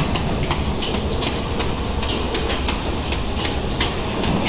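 OPP film packaging machine for small glass cups running, with a sharp regular click about three times a second over a steady high whine and a low machine hum.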